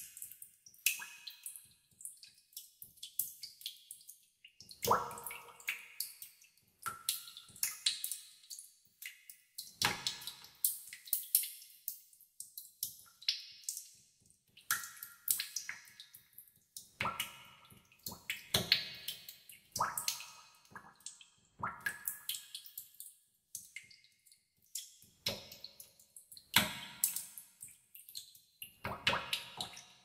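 Water drops falling into a pool in a cave, at an uneven pace of several drops a second, some much louder than others, each with an echo.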